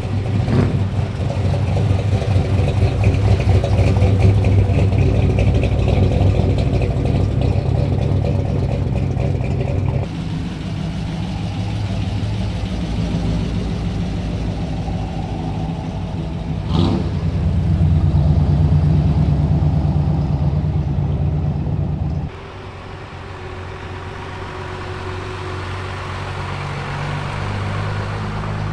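Engines of classic cars and hot rods driving slowly past, one after another: first the rumble of a 1955 Chevrolet sedan with a supercharger sticking up through the hood, swelling as it passes; then, after a sudden change, another engine from a vintage panel truck, with a single sharp crack and a louder swell; then the quieter run of a late-1950s Chevrolet pickup rolling by.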